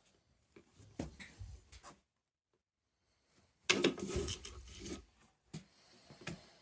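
Scattered knocks, clicks and rubbing of things being handled, loudest about four seconds in.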